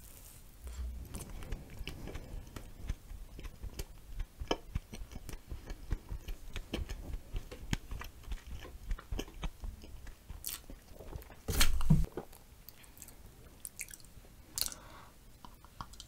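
Close-miked chewing of a glazed donut with whipped cream and blueberries: a bite into the donut at the start, then steady chewing with many small mouth clicks. One brief louder sound about three-quarters of the way through stands out above the chewing.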